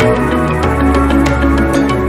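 Electronic background music with a steady beat and sustained bass.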